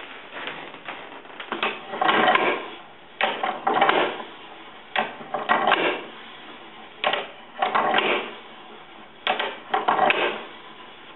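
Hand-cranked wooden automaton working through its cycle: its wooden levers, linkages and wheels clack and rattle in a burst of knocks roughly every two seconds.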